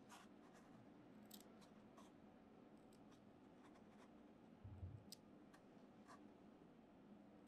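Small curved scissors snipping wool fibres: faint, sharp snips at irregular intervals, roughly one a second, with a low thump a little past halfway.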